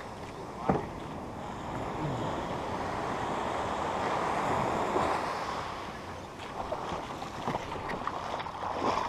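Small shore-break waves washing up a sandy beach, a rushing surf that swells and then ebbs. A sharp knock comes just under a second in, and a few lighter knocks and splashes follow in the second half as the kayak is pushed out through the wash.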